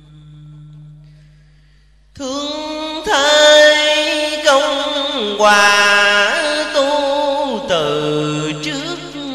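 Drawn-out Vietnamese poem chanting (ngâm) with long held notes and wide sliding pitches, entering loudly about two seconds in after a quieter held low note.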